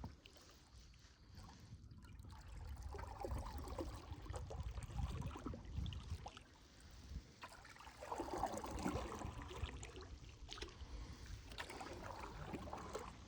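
Faint water sounds from a canoe being paddled: paddle strokes swishing and water trickling, in two swells, with a low rumble underneath.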